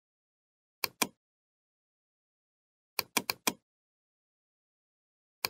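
Computer mouse clicks: a double-click about a second in, four quick clicks at about three seconds, and another click at the very end, with dead silence between.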